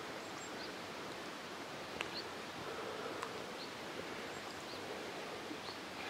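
Quiet outdoor background: a steady hiss with faint, short high chirps about once a second and a couple of small clicks.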